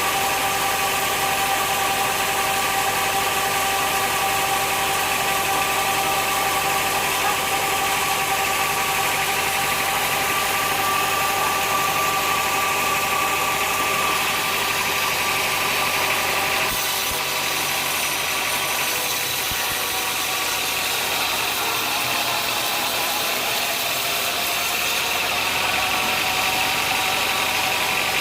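Sawmill machinery running steadily: a constant mechanical drone with several steady whining tones over a noisy hiss, shifting slightly about two-thirds of the way through.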